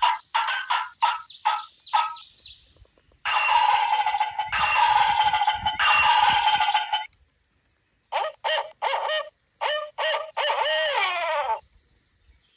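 Turkey gobbling over and over: quick rattling runs of notes, a long held call in the middle, and more rattling notes that end in a falling slide.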